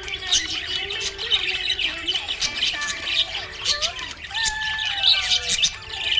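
Budgerigars chirping and chattering: many quick overlapping chirps mixed with gliding whistled notes.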